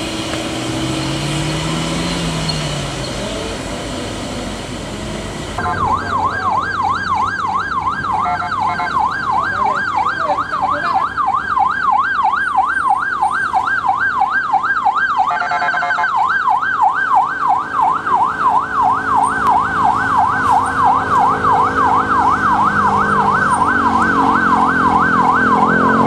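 Police van's siren in a fast up-and-down yelp, about three or four sweeps a second. It starts about five seconds in, over traffic engines, and is briefly broken near the middle by a harsher blast.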